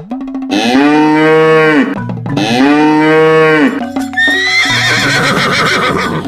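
Cow mooing: two long moos, each about a second and a half, rising and then falling in pitch. About four seconds in, a higher, wavering animal cry follows, with background music throughout.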